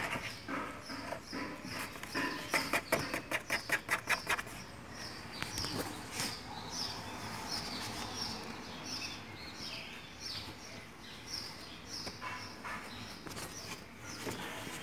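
Quick scratching and knocking on a cardboard shoebox for the first four seconds or so, as a Siamese kitten plays inside it. After that, short high bird chirps repeat over a soft background.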